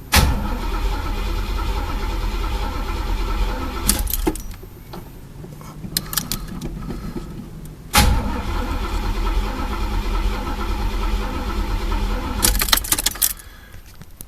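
Chevy El Camino engine cranking on the starter without catching, in two tries of about four and five seconds with a short pause between. It is a no-start from fuel starvation, which the owner thinks could also be a bad fuel pump.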